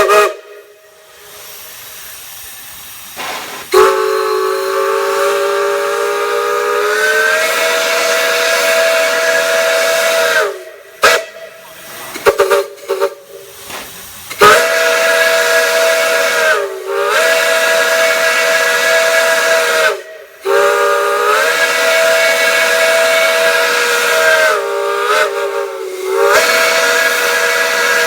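A multi-chime steam whistle blown in a series of long blasts over a hiss of steam. Each blast is a chord of several notes that sags in pitch as the valve opens and closes. A couple of short toots come near the end.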